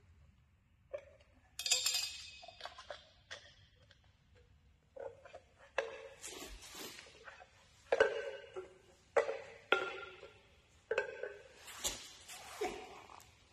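Small metal tins being picked up, set down and shuffled on a concrete floor: a dozen or so sharp clinks and knocks, each with a short ring, and a brief scrape early on.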